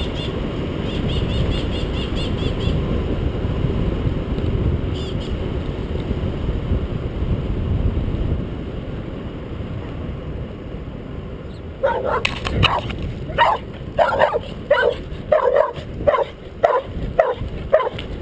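Low rushing wind and road noise from a moving bicycle, then from about twelve seconds in a dog barking repeatedly, about two barks a second, louder than the wind.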